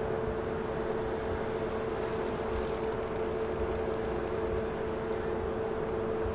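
The four Ivchenko AI-20 turboprop engines of an Antonov An-12BK running as it rolls along the runway after landing: a steady drone with one held humming tone.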